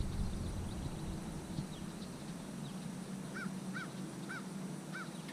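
A bird calling four times in short, arched notes, roughly half a second apart, over faint high chirping of other birds.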